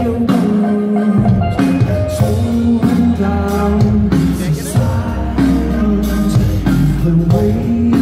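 Live band performing a rock song: a voice singing over guitars, keyboards and drums, with deep bass notes coming in about a second in.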